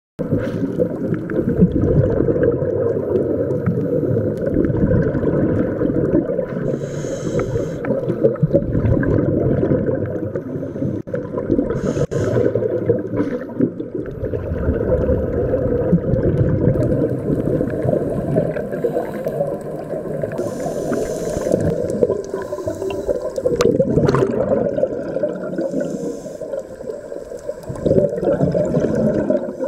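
Scuba diving heard through an underwater camera: a loud, muffled low rumble of water with several gurgling bursts of a diver's exhaled regulator bubbles.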